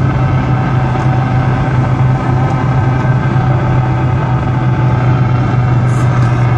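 AM car radio static: a steady, loud hiss with a constant low hum and a few faint crackles, the interference picked up from lightning discharges.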